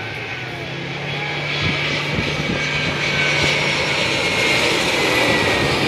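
A jet airliner on its landing approach, flying low overhead. Its engines make a steady high whine over a low hum that grows louder as it nears, and the whine falls slowly in pitch.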